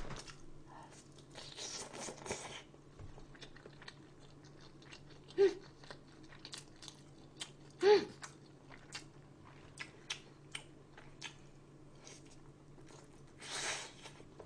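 Close-miked eating of braised spicy chicken: chewing and biting with many small clicks, and two short 'mm' sounds from the eater about five and eight seconds in, over a steady low hum.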